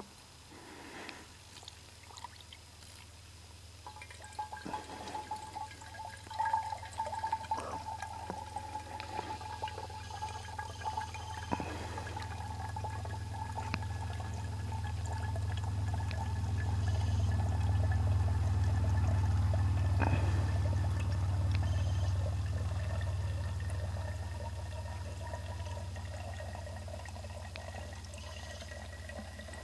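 Dirty water pouring through a t-shirt and cone coffee filter and trickling into a 1-liter steel bottle. It starts about four seconds in, swells to its loudest past the middle, then eases a little. A thin ringing tone from the filling bottle creeps up in pitch throughout.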